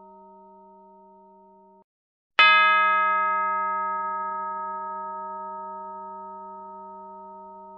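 A struck bell ringing with a long, slowly fading tone of several overtones. The ringing cuts off abruptly just under two seconds in, and after half a second of silence the bell is struck again, bright at first, then dying away slowly.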